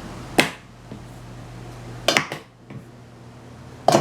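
Short sharp knocks and clatters of a thrown highlighter pen striking a cup: one about half a second in, a cluster around two seconds in, and another near the end.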